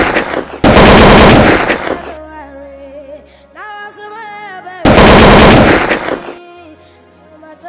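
Bursts of rapid automatic-gunfire sound effect, dubbed over prop rifles, over background music: three loud bursts, the first already under way, the second about a second in and the third about five seconds in.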